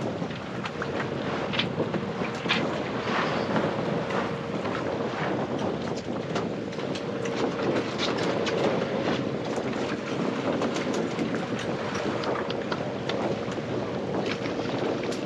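Wind buffeting the microphone on an open boat deck, with water washing against the hull, a faint steady hum underneath and scattered short ticks.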